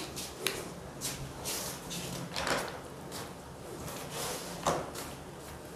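Handling and movement noise: a couple of sharp clicks at the start, then several short rustling scrapes and knocks as a person moves about close to the microphone.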